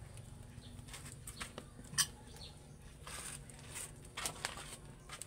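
Firewood burning in an open wood-fired stove, crackling with scattered sharp pops; the loudest pop comes about two seconds in.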